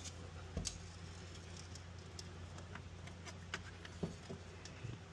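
Faint scattered clicks and taps of a small screwdriver and loose screws worked against the sheet-metal panel of a laser engraver's electronics bay, over a low steady hum.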